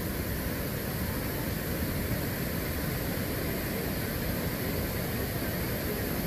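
Steady rush of waterfalls pouring into a pool and fast-flowing river water: an even, unbroken noise with a strong low rumble.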